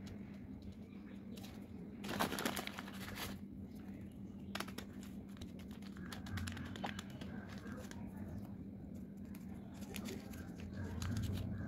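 Lined notebook paper rustling and crinkling as it is handled, in irregular bursts, loudest from about two to three seconds in. A steady low hum runs underneath.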